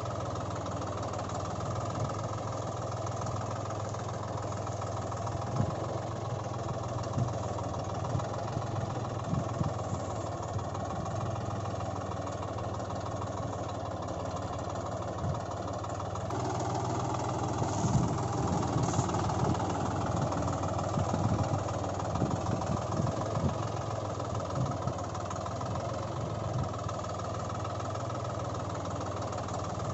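An engine running steadily, its note changing about halfway through, with a few short knocks along the way.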